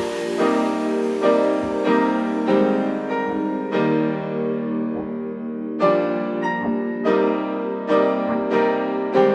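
Background music led by piano: a melody of chords struck in a steady rhythm, with no speech.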